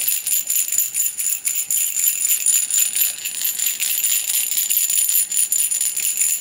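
A cluster of small hand bells is shaken continuously in a rapid, steady jingle with a bright ringing shimmer. The bells are rung as a purification ritual.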